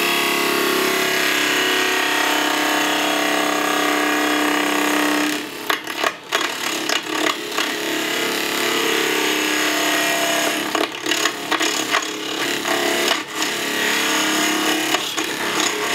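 Small wood lathe spinning a bottle-stopper blank while a hand-held turning tool cuts across its base, squaring the end and cutting the cork relief. The cut is steady for about five seconds, then breaks into a run of short cuts with brief pauses.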